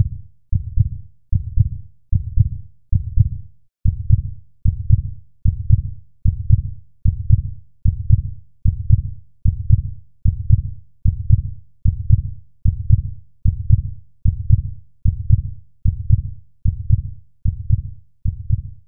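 Heartbeat sound effect: steady low double thumps (lub-dub), a little under two beats a second.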